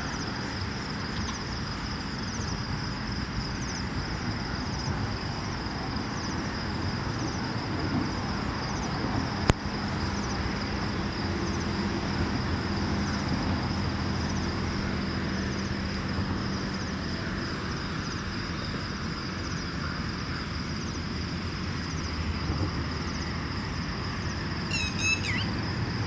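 Open-air tree-park ambience: a steady high-pitched insect drone over a low rumble of distant traffic. There is one sharp click about nine seconds in, and a short series of bird chirps near the end.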